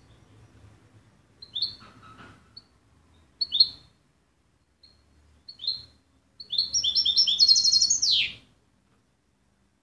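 European goldfinch calling: a few short, high chirps a couple of seconds apart, then near the end a quick twittering burst of song that finishes in a falling slur.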